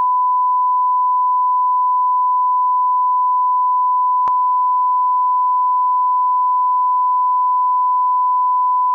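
Steady 1 kHz reference test tone, the line-up signal that goes with colour bars, holding one pitch at a constant level. A faint click about four seconds in.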